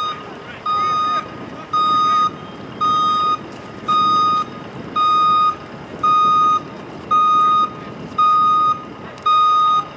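A vehicle's reversing alarm beeping steadily: one high, even half-second beep about once a second.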